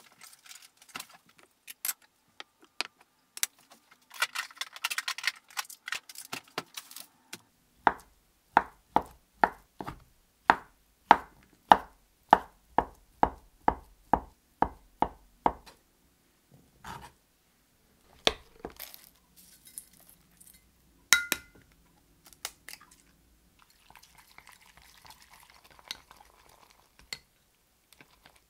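Kitchen work with dishes and utensils: clinks and a stretch of scraping, then a steady run of about sixteen knocks, about two a second, each with a low thud, then a few scattered clinks including one ringing clink.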